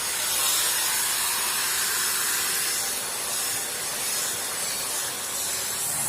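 Vacuum cleaner running with a steady hiss as it is run over a cat's fur.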